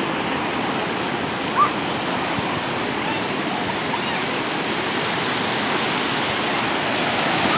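Ocean waves on the shore, a continuous steady rush of surf. About a second and a half in, a brief faint higher-pitched sound rises above it.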